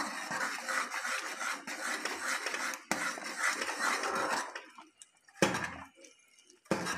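Metal spoon stirring soup fast in a metal pot, scraping and clinking against the sides, the egg-drop stir just after beaten egg goes in. The stirring stops about four and a half seconds in, followed by a couple of sharp knocks.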